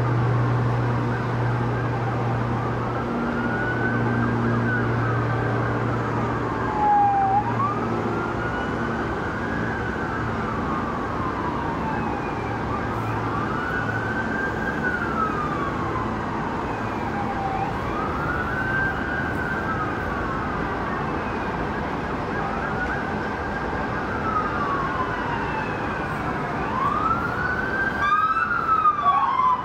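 Siren wailing, rising and falling slowly about every three seconds, changing to a fast yelp near the end.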